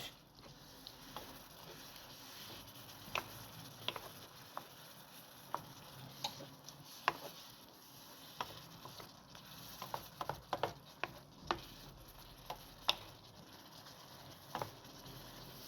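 Chicken in a reducing sauce sizzling faintly in a frying pan, with irregular light clicks and taps of a utensil stirring and prodding the pieces.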